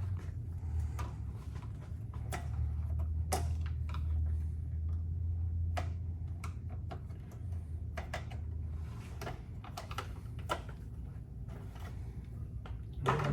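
Scattered light clicks and taps of hand tools and plastic trim panels being worked on a Can-Am Spyder, over a low steady hum that fades out about nine seconds in.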